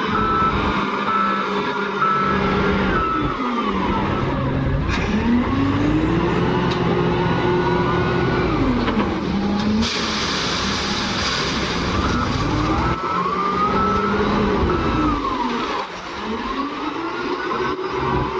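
Diesel engine of an SDLG wheel loader working a loading cycle, revving up and easing back down several times with its pitch rising and falling. There is a clank about five seconds in and a short rush of hiss around ten seconds in.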